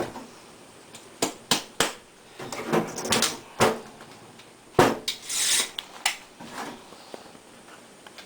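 Handling clatter from a bait gun being loaded with boilie paste: a string of sharp knocks and clicks, with a short scraping hiss about five seconds in.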